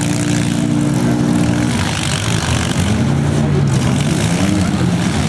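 Several demolition derby cars' engines running and revving, held steady for the first second and a half, then rising and falling in pitch.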